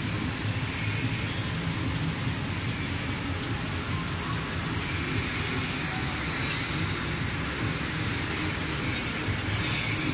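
Roller-blade fabric slitting machine running steadily, giving a continuous low mechanical hum with a hiss over it.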